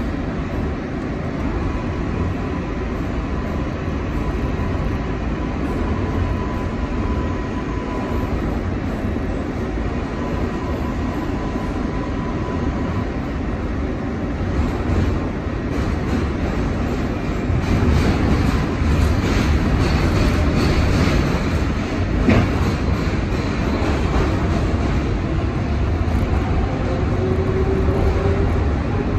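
R142A subway train running through a tunnel, heard from inside the car: a steady rumble of wheels on rail. It grows louder with a run of rapid clicks over rail joints past the middle, and faint whines from the running gear come and go.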